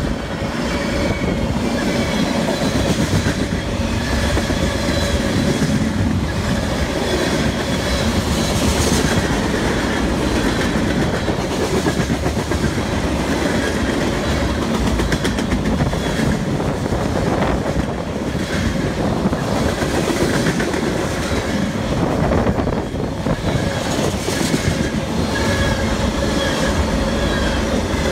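Freight train cars rolling past close by: a steady, loud rumble of steel wheels on rail with clickety-clack over the rail joints and faint thin whining tones from the wheels.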